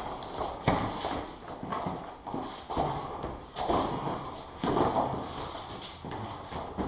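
Boxing sparring: feet stepping and shuffling on a concrete floor in an irregular rhythm, mixed with the thuds of gloved punches.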